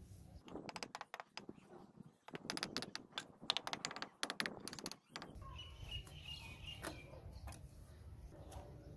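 Rapid sharp taps and clicks of a steel mason's trowel knocking fired clay bricks down into their mortar bed, running for about five seconds, then a quieter steady low hum with a brief high chirp.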